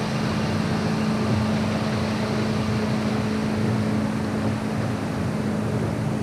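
A boat motor hums steadily on one constant low tone over a hiss of water and wind.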